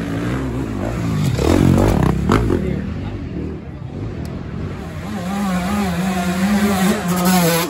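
Off-road dirt bike engine revving hard under load while climbing a steep dirt hill. The pitch swoops up and down about two seconds in, then is held high and wavers through the second half.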